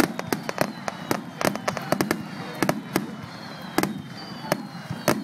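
Fireworks going off: many sharp bangs in quick, irregular succession, several a second.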